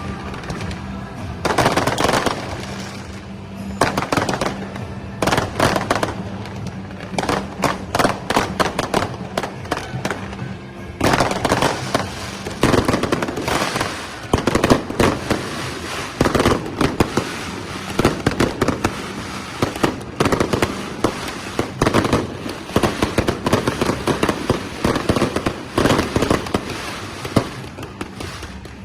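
Fireworks and firecrackers going off in rapid, irregular volleys of cracks and bangs, denser from about a third of the way in, with music underneath.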